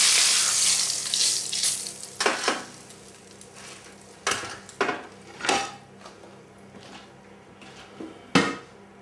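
Hot fat sizzling in a frying pan as the seared pork loin is lifted out, dying away over the first couple of seconds. After it come a few separate knocks and clunks of the pan and metal tray on the ceramic hob, the loudest one near the end.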